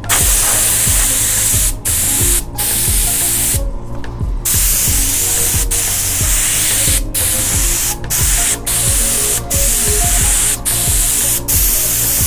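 Airbrush spraying paint onto fabric, a steady hiss that stops and starts about ten times as the spray is briefly cut, over background music.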